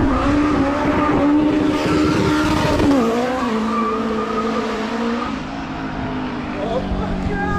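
Turbocharged Toyota 2ZZ-GE 1.8-litre inline-four at high revs, its pitch held high and then dropping sharply about three seconds in, after which it runs steadily at a lower pitch and slightly quieter.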